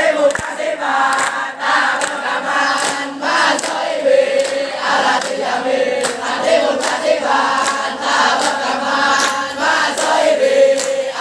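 A large group of teenage boys chanting and singing a yel-yel rally chant in unison, phrase after phrase, with hand claps throughout.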